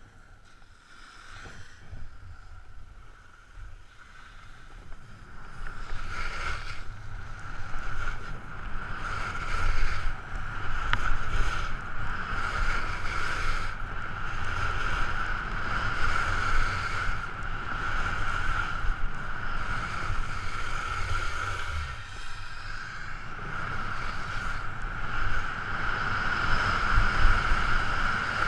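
Wind buffeting a head-mounted camera's microphone and skis sliding and scraping over hard-packed groomed snow during a fast telemark descent, with a steady whine underneath. It starts softer and grows louder a few seconds in as speed picks up, easing briefly near the end.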